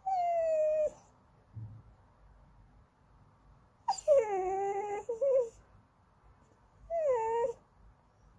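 Goldendoodle puppy whining for treats: three high, drawn-out whines, each sliding down in pitch, the middle one the longest and loudest with a wavering end.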